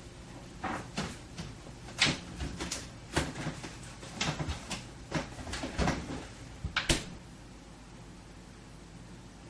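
Refrigerator door and shelves being handled: a string of knocks and clunks, about a dozen over some six seconds, the loudest near the end, then they stop.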